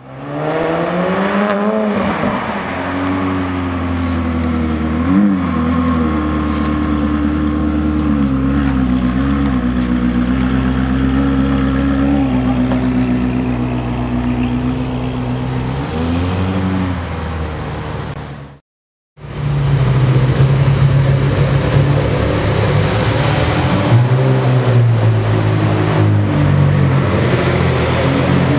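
Ferrari 360's 3.6-litre V8 revving up over the first two seconds, then held at raised revs with a few short throttle blips. After a sudden cut about nineteen seconds in, another Ferrari 360 V8 idles at a lower, steadier pitch with small rises.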